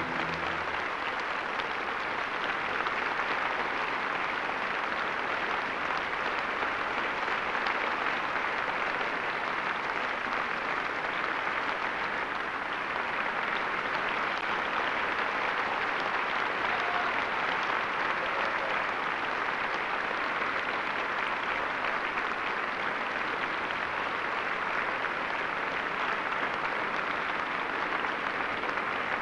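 A large concert-hall audience applauding, steady and dense throughout. The orchestra's last chord dies away in the first moment.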